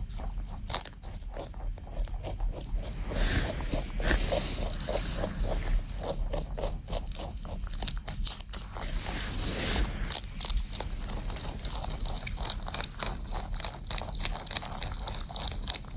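Rabbit chewing celery: rapid crisp crunching, bite after bite.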